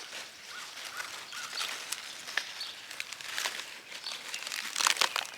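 Rustling and crackling of leafy garden plants handled by hand while romaine lettuce is harvested: short, irregular crisp rustles, with a denser burst of them near the end.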